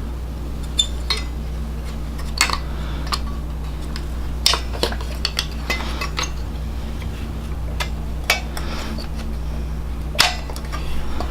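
Plastic keys of a Korg keyboard clicking and knocking as a replaced key is seated on the keybed and pressed to test it: irregular sharp clicks over a steady low hum.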